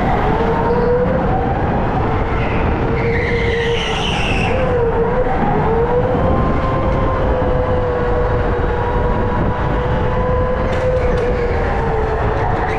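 Racing go-kart running flat out on an indoor track: a steady motor whine that drifts up and down a little with speed over a rumble. A high tyre squeal runs from about two to five seconds in, and a few short knocks come near the end.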